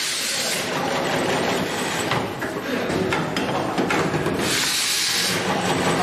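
Automatic ribbon-cable cut, strip and crimp machine running: steady mechanical clatter, with hissing bursts of compressed air from its pneumatic cylinders, one at the start and another about four and a half seconds in.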